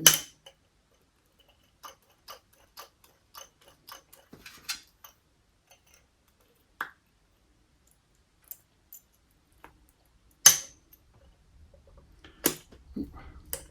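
Small metal clicks and taps of a circlip being worked into the bore of a motorcycle brake master cylinder, with the circlip repeatedly slipping and failing to seat. A sharp click opens it, then a scatter of light ticks, and a few louder single clicks come near the end.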